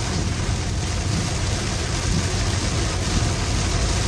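Inside a car driving through a heavy downpour: steady noise of rain on the car and tyres on the wet road over a low engine and road rumble.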